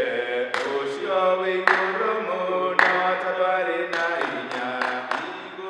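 Unaccompanied worship singing with hand claps about once a second.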